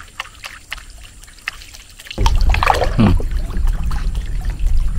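Water trickling and lapping around a small fishing boat, with scattered light clicks. About two seconds in, a loud, uneven low rumble sets in and carries on.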